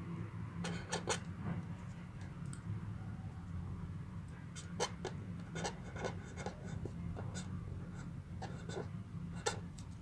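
Pen writing on paper: irregular short scratches and taps as letters are written, over a steady low hum.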